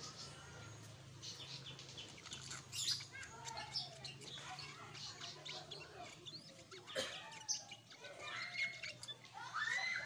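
Black-headed bulbul (kutilang sutra) calling: a busy run of short chirps and quick whistled notes, with louder bursts now and then, over a steady low hum.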